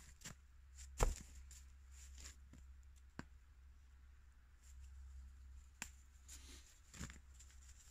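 A snow-covered rock set down onto the fire-pit stones, with one sharp knock about a second in. A few fainter clicks follow.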